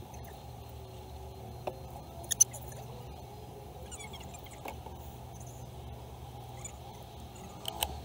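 Low steady hum inside a car's cabin while it sits stopped with the engine idling, with scattered faint clicks and a couple of sharp ticks about two and a half seconds in.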